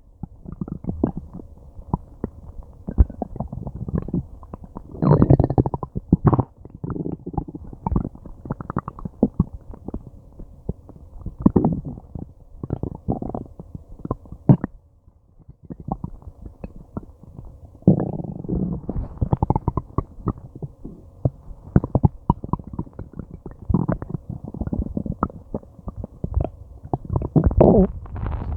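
Stomach and intestines gurgling and growling: an irregular, bubbly run of gurgles and pops, with a brief lull about halfway through. The gut is working hard to break down a meal.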